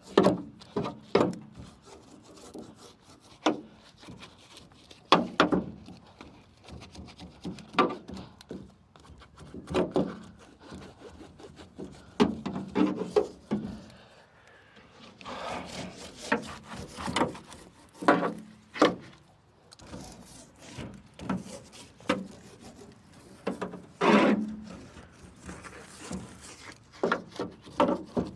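Car door panel trim being worked into place by hand: irregular rubbing and scraping with short knocks every second or two.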